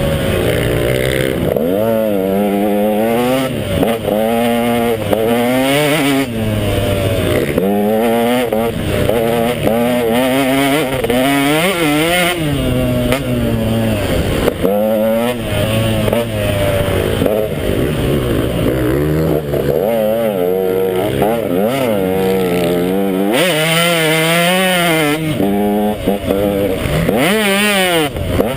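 KTM 150 XC two-stroke dirt bike engine revving hard over and over, its pitch climbing and then dropping every second or two as the throttle opens and closes on the trail.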